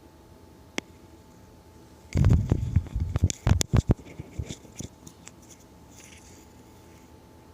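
A single click, then about two seconds of loud knocks and scraping close to the microphone, tailing off into a few small ticks, over a steady low hum.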